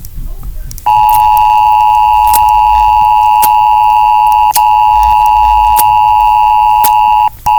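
Emergency alert system attention signal: a loud, steady two-pitch electronic tone that begins about a second in, with a very brief dropout midway and a short break near the end.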